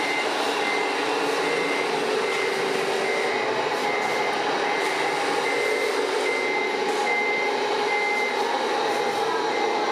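Reversing beeper of a scale RC truck's sound module, beeping evenly about once every three-quarters of a second over a steady hum.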